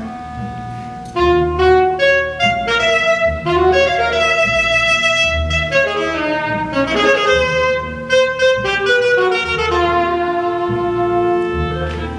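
Alto saxophone playing a solo melody of held and moving notes, entering strongly about a second in, with an orchestra's bowed strings accompanying and low notes pulsing underneath.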